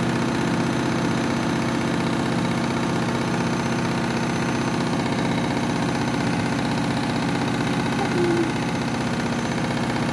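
Overloaded washing machine on its final spin, the drum running steadily at high speed, around 800 rpm, short of its fastest spin speed.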